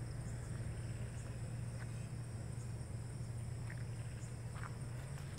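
Crickets chirring in a steady high chorus over a low, steady hum, with a few faint ticks.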